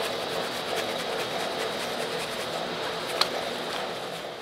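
Brush scrubbing grimy outboard engine parts wet with Mean Green degreaser, a steady scrubbing with a sharp click about three seconds in.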